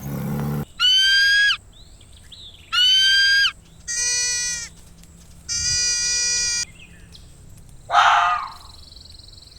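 A series of animal calls: two high calls that fall slightly in pitch, then two longer, lower steady calls, and a short rough burst near the end.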